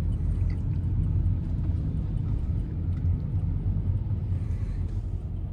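Steady low rumble of a minivan's engine and road noise heard from inside the cabin while it drives.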